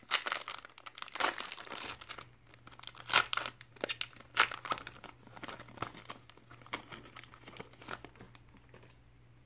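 A foil trading-card pack wrapper crinkling and tearing as it is ripped open by hand: a run of irregular crackles that dies down near the end.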